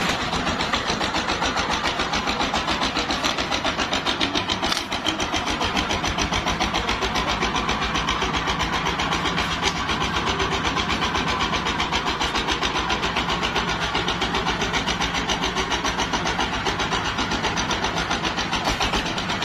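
Single-cylinder diesel engine of a homemade mobile circular-saw rig running steadily, with an even, rapid beat of firing strokes.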